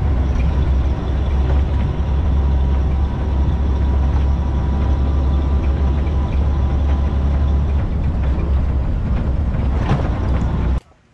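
Engine and road noise of a military cargo truck driving slowly, heard from its open cargo bed: a steady, heavy low rumble. It cuts off suddenly near the end.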